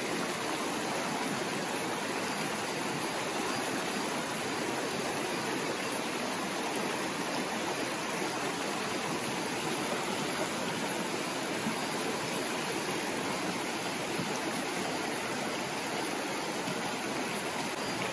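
Shallow stream flowing over rocks: a steady, even rush of water.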